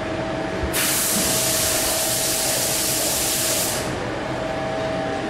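A loud hiss of a gas jet, starting suddenly about a second in and lasting about three seconds before tailing off, over the steady hum of factory machinery holding one tone.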